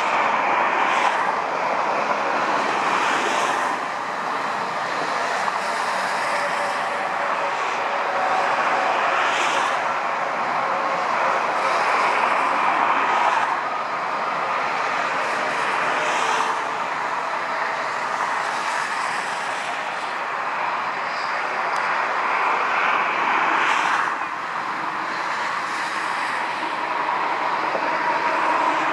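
Steady jet engine noise of a Boeing 747 landing and rolling along the runway, with a higher rushing hiss that swells and fades every few seconds.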